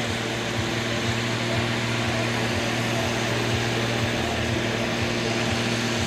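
John Deere farm tractor's diesel engine running steadily at low revs while hitched to a tractor-pulling sled.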